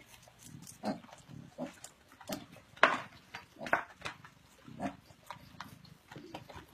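Pig grunting and eating from a bowl: low grunts among irregular sharp smacks, the loudest about three seconds in.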